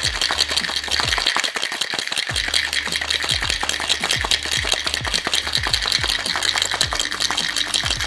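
Ice rattling hard inside a metal cocktail shaker being shaken vigorously: a dense, fast clatter of ice on metal. Under it runs music with a steady low beat about twice a second.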